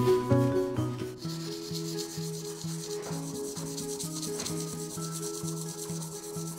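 A drawing pencil scratching and rubbing on paper in continuous strokes, over background music with a slow, pulsing low note.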